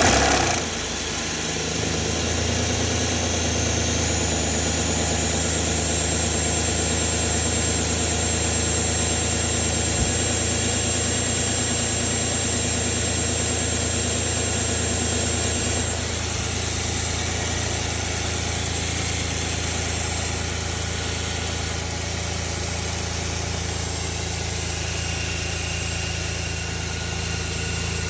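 Audi A6 (4F) 2.4-litre V6 petrol engine idling steadily, with a thin high whine from about 4 s to 16 s in.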